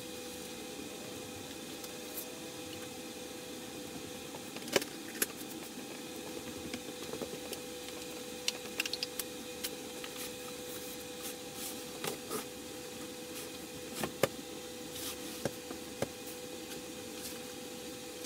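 Scattered clicks and knocks from materials being handled and moved around a workshop, over a steady electrical hum. The two loudest knocks come about five seconds in and near fourteen seconds.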